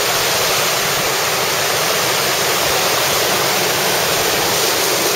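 Ocean surf breaking over a rocky shore, the whitewater making a steady, loud rushing hiss.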